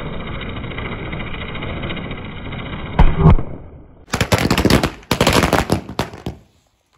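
A chakri ground spinner hisses as it spins, then a loud bang about three seconds in, followed by a dense run of rapid firecracker bursts: the spinner's sparks have set off the Murga Chhap crackers lying beside it. The sound stops abruptly near the end.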